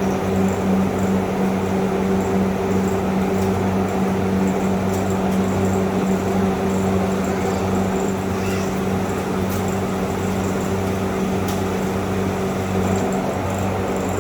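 A steady, low mechanical hum that holds an even pitch throughout, with a few faint clicks over it.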